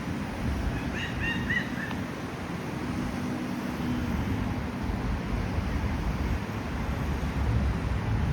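Steady low rumble of outdoor seaside promenade ambience, with wind and distant traffic. About a second in, a bird chirps about five times in quick succession.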